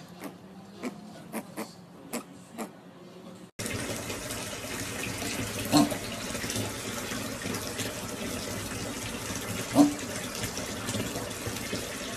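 A few faint clicks, then from about three and a half seconds in a steady rush of water running into a bathtub, broken twice by a brief pitched sound.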